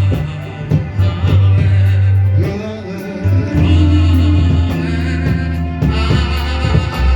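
Gospel worship music with singing over a heavy, sustained bass line that shifts pitch every second or two, with a regular ticking beat.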